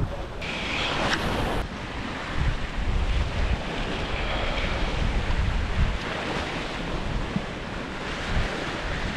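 Sea surf washing and foaming against a rock ledge, with wind buffeting the microphone in uneven low gusts.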